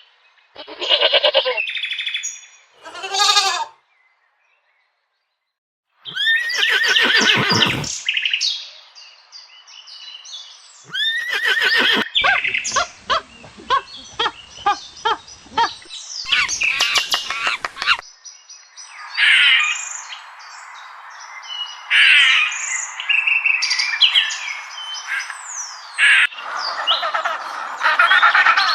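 A series of animal calls from several clips: short pitched calls, then a run of quick repeated calls, then many birds chirping over a steady background hiss. There is a dead-silent gap of about two seconds near the start.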